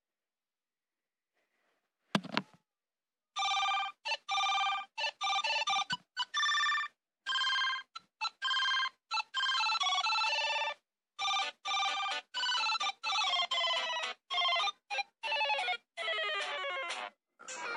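Phone ringtone: a fast electronic melody of short, clipped notes, starting about three seconds in after a single short tap.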